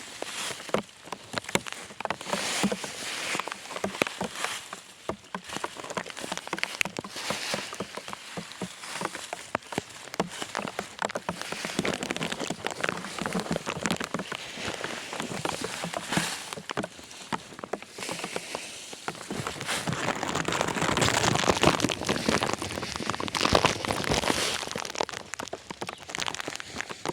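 Rain falling, a dense pattering of small drops, growing heavier about twenty seconds in.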